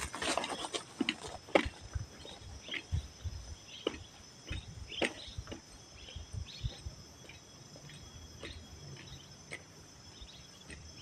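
Footsteps brushing through leafy ground plants, close at the start and thinning out to scattered rustles over the next several seconds as the walker moves away, over a steady high drone of insects.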